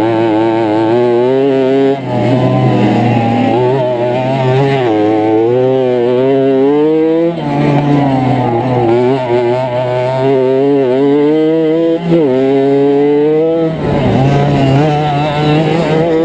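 50cc two-stroke moped engine under race throttle, its pitch wavering up and down, with brief lifts of the throttle about 2, 7, 12 and 14 seconds in.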